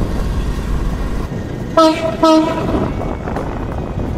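Locomotive horn sounding two short blasts about two seconds in, over a steady low rumble.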